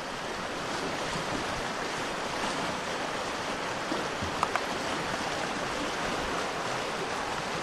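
Creek rapids rushing steadily, with a few faint short sounds about halfway through.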